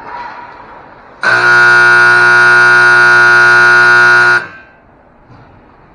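Ice rink scoreboard buzzer: one loud, steady blast of about three seconds that cuts off suddenly.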